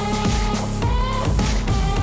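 Background music with a steady beat and sustained melodic tones over a strong bass.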